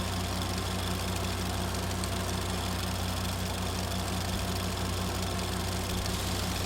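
Super 8 film projector running: a steady motor hum with a fast, even mechanical flutter from the film moving through the gate.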